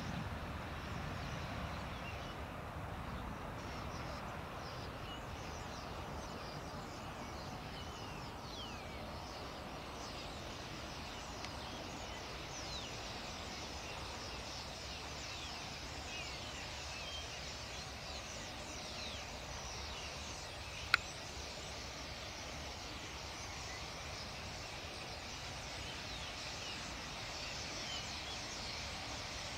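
A large flock of common starlings calling as it flies, heard as a faint chatter of many short whistles and squeaks over a steady low rumble. A single sharp click about two-thirds of the way through.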